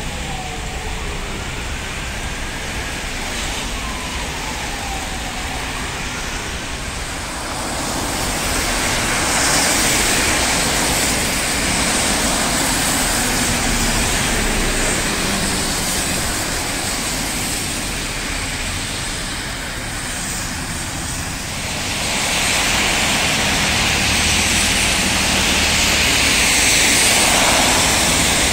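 Traffic on a wet city street: tyres hissing on the wet asphalt as cars and trolleybuses pass, the hiss swelling twice as vehicles go by. In the first few seconds an approaching trolleybus's electric drive gives a faint whine that glides up and down in pitch.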